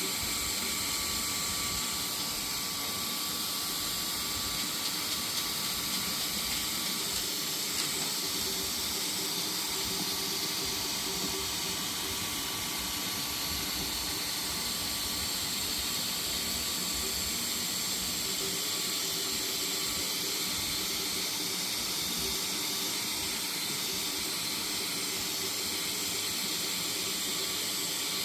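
Spray painting a Jeep Gladiator bumper: a steady, unbroken hiss of paint spray.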